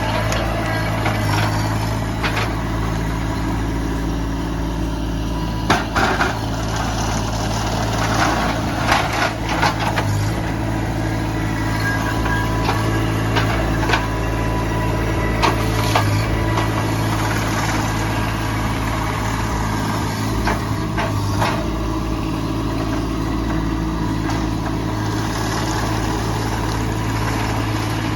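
A truck engine runs steadily at idle, with scattered sharp knocks and cracks over the top.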